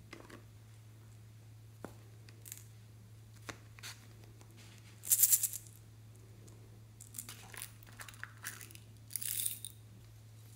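Small plastic toy containers being handled over a dish of slime: scattered plastic clicks and short rattling shakes, the loudest about five seconds in and another near the end, over a low steady hum.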